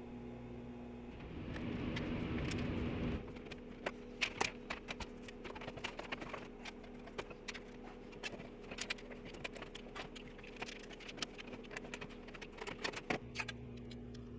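Irregular small metallic clicks and rattles of hands handling metal fittings, over a steady electrical hum. A brief rush of noise comes about one to three seconds in.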